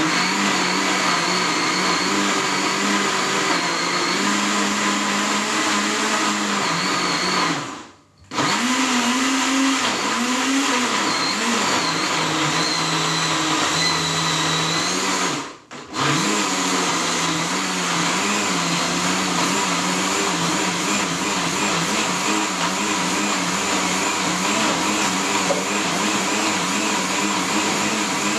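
Countertop electric blender running, blending fruit, yogurt and milk into a smoothie. The motor stops briefly twice, about eight and sixteen seconds in, and starts up again each time.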